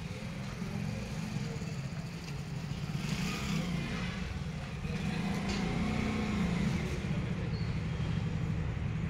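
Massey Ferguson tractor's diesel engine running at low revs, its pitch and level rising a little about six seconds in. A brief rustling noise comes about three seconds in.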